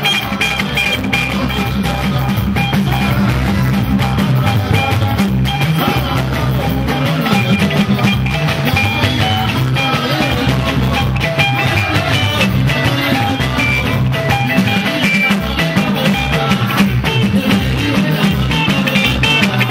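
Live band playing: electric guitars and a drum kit with a steady beat, continuing without a break.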